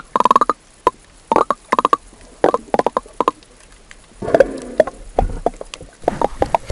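Underwater gurgles and pops of water and air bubbles around the action camera's waterproof housing just below the surface, coming irregularly several times a second, with a longer, denser gurgle about four seconds in.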